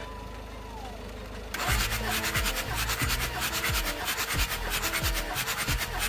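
Mercedes-Benz W124 300D's OM603 inline-six diesel turned over by its starter motor for a compression test, with the injectors out. The cranking starts about a second and a half in and goes on with a regular pulsing rhythm.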